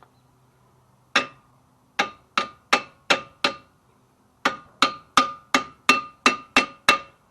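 Hammer striking metal in sharp, ringing knocks: one blow, then a run of five, then a run of eight at about three a second, as stubborn brake pads are tapped into place on a Camry's front brake.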